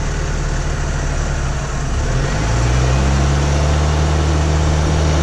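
A 4x4's engine idling steadily, its pitch and level rising a little about halfway through.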